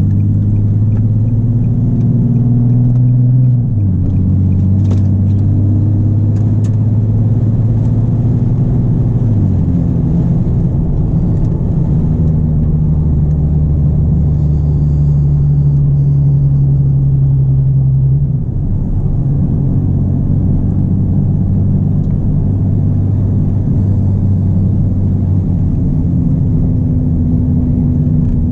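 Nissan 370Z's VQ 3.7-litre V6 through a Greddy single RS exhaust with Motordyne Art test pipes, heard from inside the cabin while driving. A steady deep drone that jumps to a new pitch three times as the revs change.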